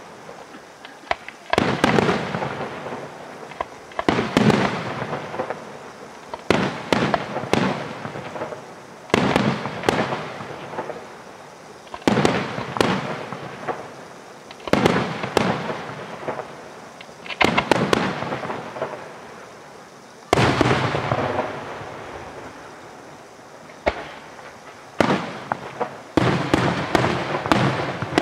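Aerial firework shells bursting overhead, a loud bang every two to three seconds, each trailing off in a long rolling echo. Quicker clusters of sharp reports come near the middle and again towards the end.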